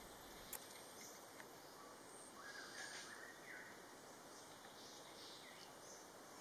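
Near silence: faint outdoor background with a few distant bird calls, including a short rising whistle about two and a half seconds in, and a light click about half a second in.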